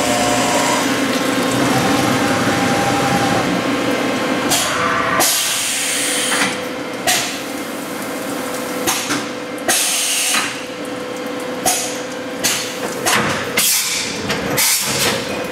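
CNC milling machine cutting an aluminium part under flood coolant: a steady spindle tone under the hiss of coolant spraying. From about four and a half seconds in there are repeated sharp surges of hiss at irregular intervals.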